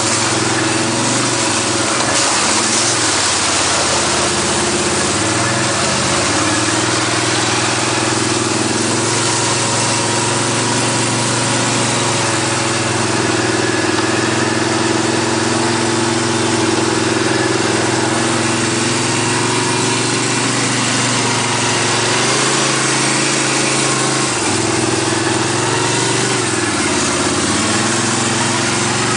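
ATV engine running steadily, its pitch rising and falling slightly a few times as the throttle changes.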